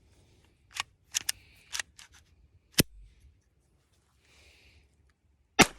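Sharp metallic clicks of a Taurus TX22 .22 LR pistol being handled to clear a malfunction, a round that loaded but failed to eject, then near the end one loud shot with a ringing tail.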